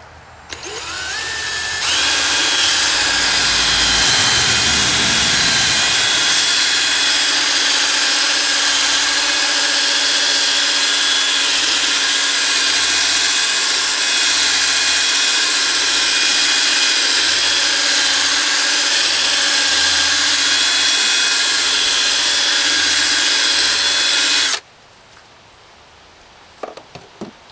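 Electric drill spinning a buffing pad against a plastic headlight lens to polish out the haze. It winds up over the first couple of seconds with a rising whine, runs steadily, then stops suddenly near the end.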